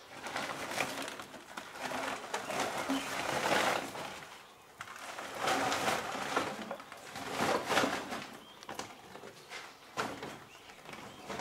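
Plastic bottle traps rattling and a woven plastic sack rustling as the bottles are packed into it, in several bursts, with one sharp click near the end.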